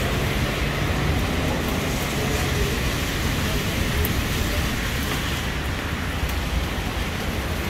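Steady background din with a low rumble and faint, indistinct voices.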